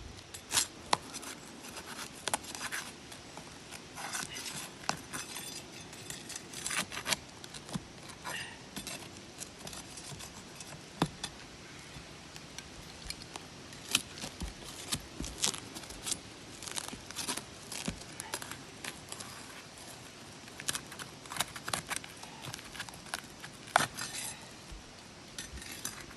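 Brittle asphalt shingle being pried up, with irregular sharp cracks, scrapes and clicks as the shingle and its tar seal tear loose. The cracking is the sign of shingles too brittle to lift without damage.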